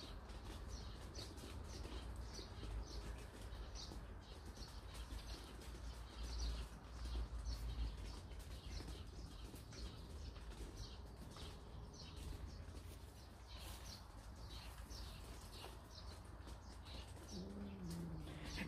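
Sparrow chirping faintly, a steady run of short high chirps repeating every second or so, over a low rumble.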